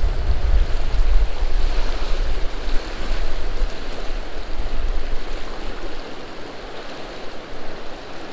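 Wind buffeting the microphone over a steady rushing hiss; the low buffeting dies down after about five seconds.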